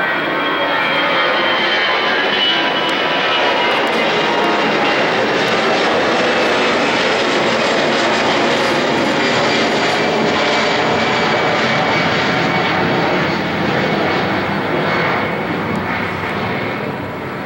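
Twin-engine jet roar from an Airbus A320-family airliner flying overhead, loud and steady. A thin engine whine slowly drops in pitch as the plane passes. The roar swells in the first second and eases slightly near the end.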